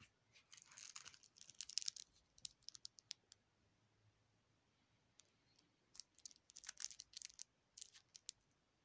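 Two flurries of quick, light clicks and rattles, the second starting about six seconds in: a Hi-Capa gas blowback airsoft pistol being handled, its plastic and metal parts clicking.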